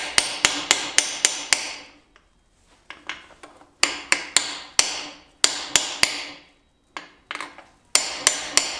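Hammer driving a freeze plug into the side of a Ford 302-based 347 stroker's cast iron block: quick runs of sharp metallic strikes, about four a second, in several groups with short pauses, each blow ringing briefly.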